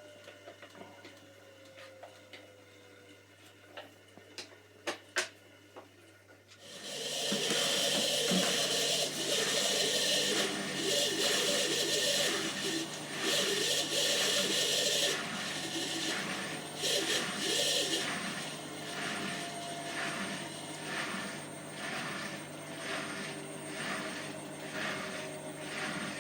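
Hotpoint washing machine running, with a few clicks in a quieter opening stretch. About a quarter of the way in a loud rushing machine noise starts, later settling into a rhythmic pulsing about twice a second: the squeaking noise this machine has been making when it spins on its 30-minute cycle.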